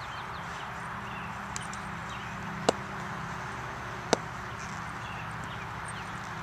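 Two sharp knocks about a second and a half apart, with a fainter one before them, over a steady outdoor hiss and low hum.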